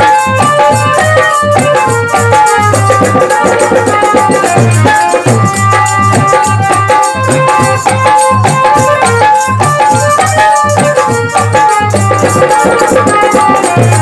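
Instrumental break in a Hindi devotional bhajan: a melody of held notes over a steady drum beat, with continuous shaken-rattle percussion.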